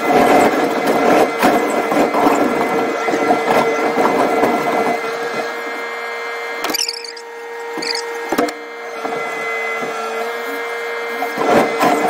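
Rail-mounted sleeper-laying excavator working: a steady machine hum and whine under rough scraping and rattling. Two brief high squeals come a little past halfway.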